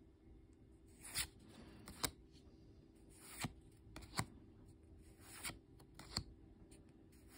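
Pokémon trading cards being slid one at a time from the front to the back of a handheld stack: a faint swish of card stock and a light snap, about six times, roughly once a second.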